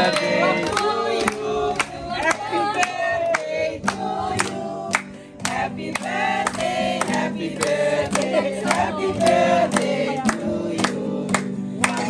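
A group of people singing together, a birthday song to a cake with lit candles, with hand-clapping in rhythm at about three claps a second.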